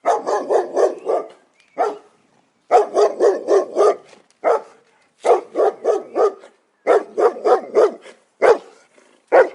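Dog bark timer alarm: a recorded dog barking in quick runs of five or six barks, about five a second, with a single bark between runs, over and over.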